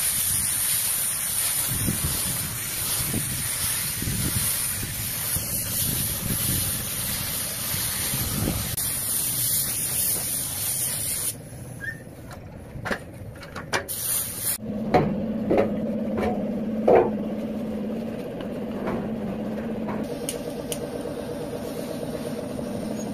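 Compressed-air spray gun hissing steadily as it sprays grey primer onto a motorcycle fuel tank for about eleven seconds. It then stops, a few knocks follow, and a steady low hum with scattered clicks sets in.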